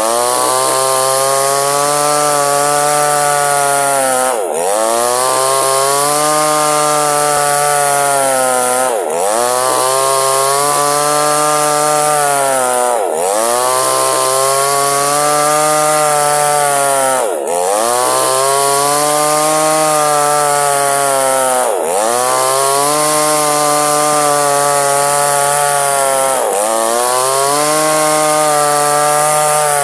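Small chainsaw running hard while cutting a log lengthwise into two halves. Its engine pitch dips sharply and climbs back about every four seconds, then sags slowly under the load of the cut.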